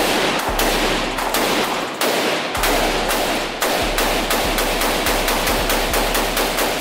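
Rapid gunfire at a shooting range: a long string of shots, several a second, each with an echoing tail.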